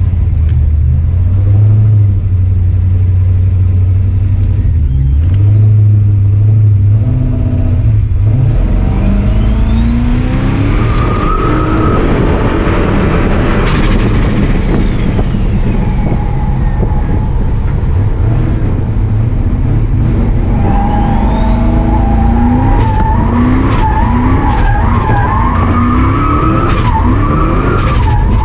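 Turbocharged car engine being revved hard while drifting. After a low steady engine note, a high turbo whistle climbs steeply about ten seconds in, holds, then falls away. From about twenty seconds in it climbs again in short steps, dipping briefly each time the revs drop, over the sound of sliding tyres.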